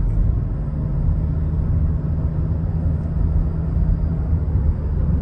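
Steady low engine and road drone of a moving vehicle, heard from inside the cabin, with a constant hum.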